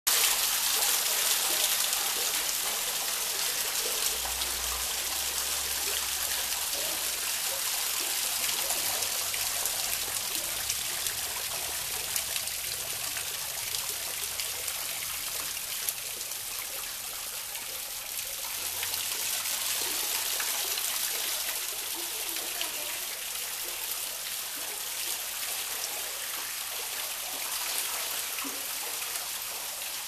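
Garden water wall: water falling in many thin streams down a stacked-stone face and splashing steadily into a small pond.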